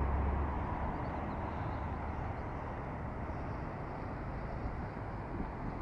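Steady low road and engine rumble of a campervan on the move.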